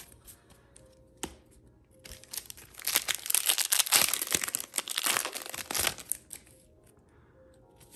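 A foil Yu-Gi-Oh Shadow Specters booster pack wrapper is torn open and crinkled by hand. A dense crackling rustle starts about two seconds in and dies away about six seconds in.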